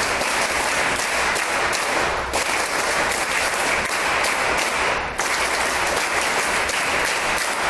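A crowd of people clapping: steady applause.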